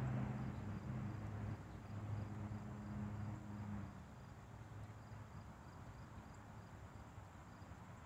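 Crickets chirping faintly in a regular high pulse, a few chirps a second. A low, steady hum from a distant engine fades out about halfway through.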